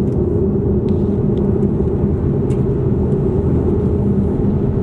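Steady low rumble of road and engine noise inside the cabin of a moving Chevrolet car.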